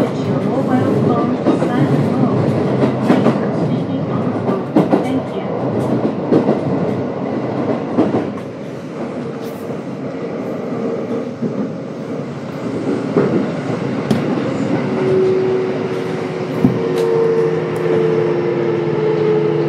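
Kintetsu 1031 series electric train running on rails with Hitachi GTO-VVVF traction, its wheels knocking over rail joints. About three-quarters of the way through, the inverter's steady whine sets in, falling slightly in pitch as the train brakes for the next station.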